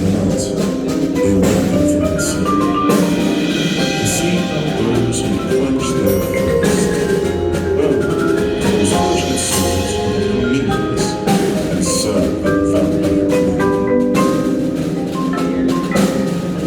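High school marching band playing its competition field show. The front ensemble's marimbas and other mallet percussion are prominent, over held notes and frequent struck percussion hits.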